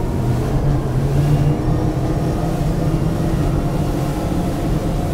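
The four Mercury Racing 450R outboard engines of a power catamaran are running under hard throttle as the boat accelerates through about 18 to 27 mph. The engine note climbs slowly.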